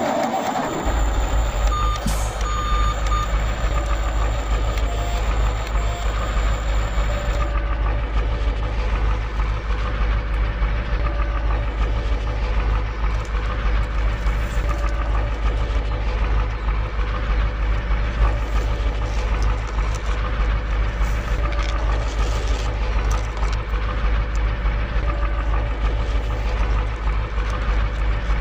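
Heavy truck engine running with a steady low rumble that starts about a second in, together with a truck's reversing beeps.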